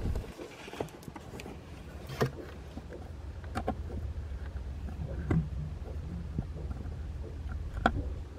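Hand screwdriver driving a screw to fasten a dash mount to a Jeep JL dashboard: a handful of small clicks, one every second or two, as the screw and driver turn. A steady low rumble runs underneath.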